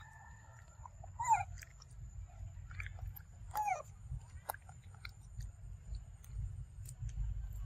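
A pig-tailed macaque chewing and biting into a soursop fruit, with soft wet clicks and crunches. Two short downward-sliding calls cut in, once about a second in and again about halfway through, over a thin steady high tone.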